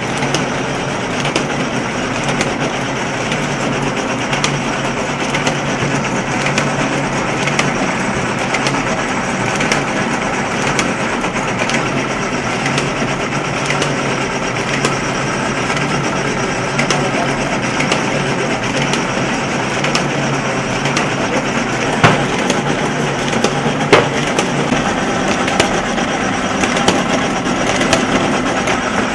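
Printing and book-binding machines running: a steady mechanical clatter with fast fine clicking, and two sharper clacks about two seconds apart near the end.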